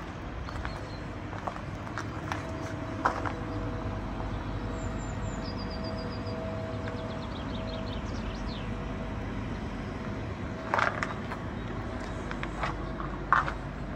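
Outdoor ambience: a steady low rumble with a faint hum for several seconds, a small bird singing a quick run of high chirps about five seconds in, and a few sharp scuffs of footsteps on gravel near the end.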